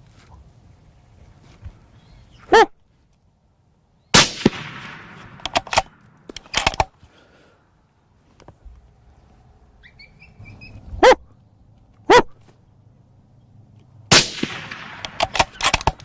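Two rifle shots about ten seconds apart, each a sharp crack with a long echoing tail, followed by a quick run of smaller clicks and knocks. Short yelps come about a second and a half before the first shot and twice just before the second.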